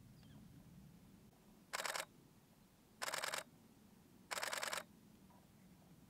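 DSLR shutter firing in continuous burst mode: three short bursts of rapid clicks, each under half a second, about a second apart.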